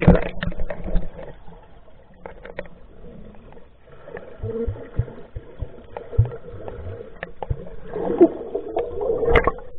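Muffled swishing and gurgling of pool water heard through a camera microphone held underwater, with scattered soft knocks, growing louder near the end.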